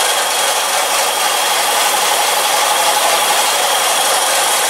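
A workshop machine running steadily with a loud, even rushing noise that does not change.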